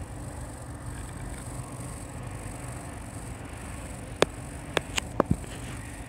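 Steady low background rumble with a thin, steady high hiss, broken by about five sharp clicks between four and five and a half seconds in.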